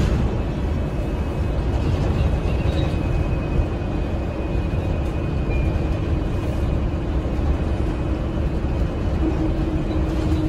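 Cabin noise of a 2018 NovaBus LFS CNG transit bus under way: its Cummins L9N natural-gas engine and Allison six-speed transmission running with road rumble, a steady low drone. A humming tone comes up near the end.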